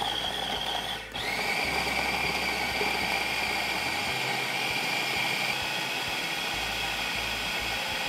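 Electric food processor motor running with a steady whine, chopping raw chicken breast and bacon into a smooth paste. It stops briefly about a second in, then starts again at a slightly lower pitch and runs on steadily.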